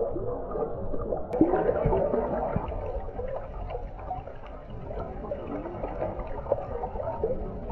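Muffled water sounds through a GoPro's microphone in the water: irregular sloshing and bubbling with small crackles and ticks. A little over a second in, a click and the sound turns abruptly brighter, as at a cut between clips.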